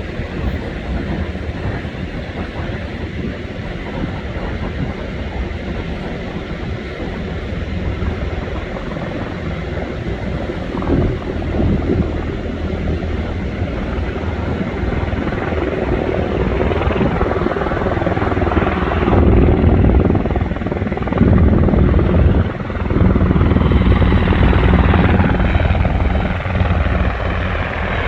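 UH-60 Black Hawk helicopter's rotor and turbine noise, a steady rumbling that grows louder as it approaches and is loudest in the second half.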